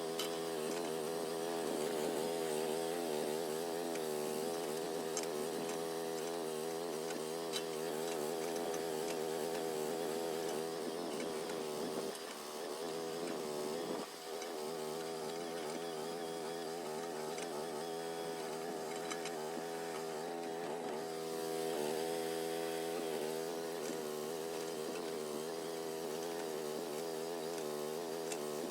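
Groundhog mini excavator's engine running steadily, its pitch wavering up and down as the hydraulics take load while it digs and grades dirt, with two brief dips a little before the middle.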